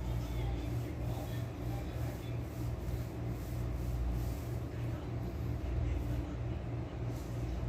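A steady low mechanical hum with a constant pitch under a light background hiss, and faint, evenly repeated high ticks on top.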